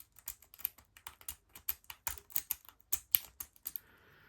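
A rake pick worked in and out of a Squire LN4 padlock's keyway to bounce the pin stack, a quick irregular run of sharp clicks that stops about three and a half seconds in.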